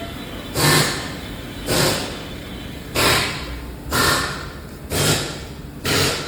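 Six regular strokes on a wheel hub during its teardown, about one a second, each a sharp noisy hit that fades over about half a second.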